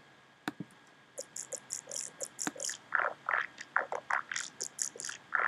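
A Reece growl bass run through Ableton Live's Vocoder plays back as a chopped, rhythmic string of short, wet, vowel-like growl bursts, several a second, starting about a second in.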